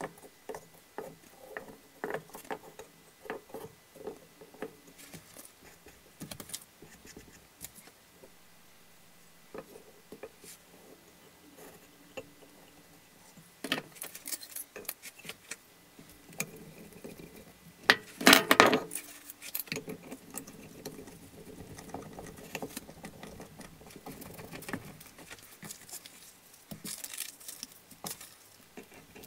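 Glued hardwood strips tapped and shuffled together on a workbench, then metal bar clamps clattering and scraping as they are set and tightened. The loudest clatter comes a little past halfway, and newspaper rustles near the end.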